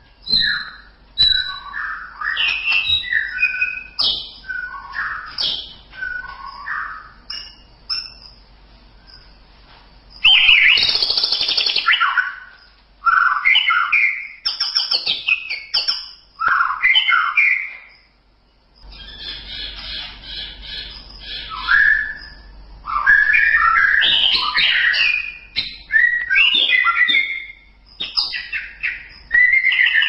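White-rumped shama (murai batu) singing a long, varied series of loud whistled and warbled phrases. A harsh rasping call comes about ten seconds in, and there are brief pauses around eight and eighteen seconds in.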